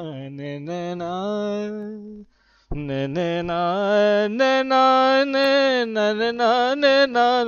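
A man singing a Hindi film-song melody in a single unaccompanied voice, holding long notes. He breaks off for a short pause a little over two seconds in, then sings on.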